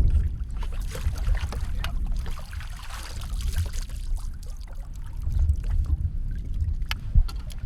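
Wind buffeting the microphone on an open fishing boat, a gusty low rumble, with water washing and a few sharp knocks, the loudest about seven seconds in.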